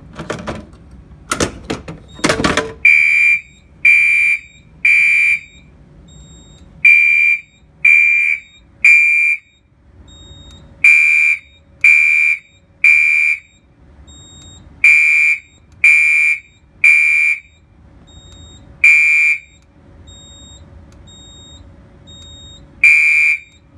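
A few sharp clacks as the fire alarm pull station is pulled, then a Gentex SHG24-1575WWZ horn sounding loud one-second blasts in code three: four groups of three, then only single blasts twice. The horn is skipping pulses, which older Gentex horns tend to do when coded externally by the panel.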